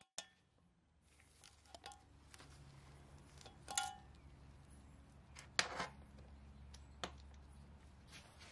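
A handful of light metallic clinks and knocks, about five spread out, the loudest near the middle, as the valve guide driver tool is lifted off the cylinder head and metal tools are handled, over a faint steady low hum.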